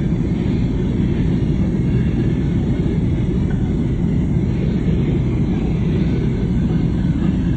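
Steady low rumble of a car driving on a snowy road, heard from inside the cabin: engine and road noise.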